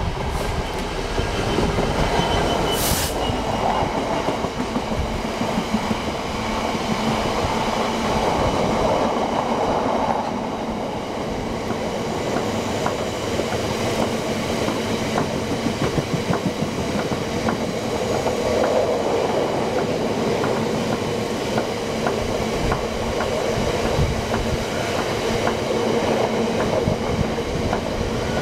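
Class 66 diesel locomotive running past close by, then a long train of biomass hopper wagons rolling past with a steady rumble and regular clicks of wheels over rail joints. A short hiss sounds about three seconds in.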